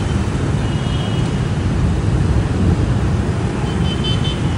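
Steady street traffic noise: a continuous low rumble of passing motor vehicles.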